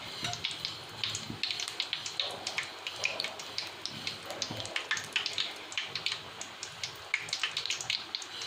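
Batter-coated onion rings deep-frying in hot oil in an aluminium kadai: a steady sizzle with dense, irregular crackling pops.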